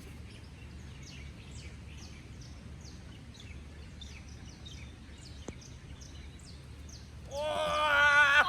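Birds chirping over a low, steady outdoor background: short, high, falling chirps about twice a second. Near the end a person lets out a loud, drawn-out vocal exclamation.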